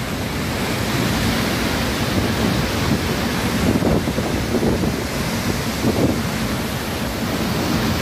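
Heavy waterfall in spate, swollen by heavy rain, pouring down a rock face: a steady, loud rush of water, with wind buffeting the microphone.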